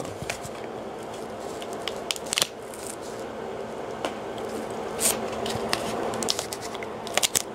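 Plastic shrink wrap crinkling and crackling as fingers pick at it on a boxed card product, with scattered sharp crackles, several of them close together near the end.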